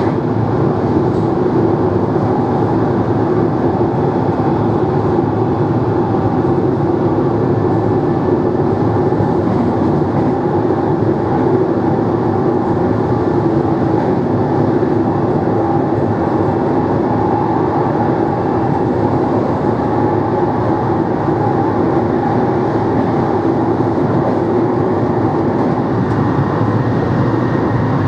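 NMBS/SNCB AM96 (MS96) multiple unit's motors running steadily under way, a constant hum with a few steady tones over the rumble of the train.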